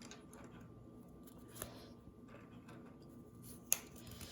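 Scissors cutting open a Playmobil blind bag: faint snips and crinkling, with one sharp click near the end.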